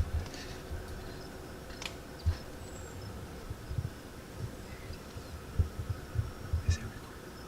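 Quiet outdoor ambience with soft low thumps scattered through it and a couple of light clicks, over a faint high insect-like background.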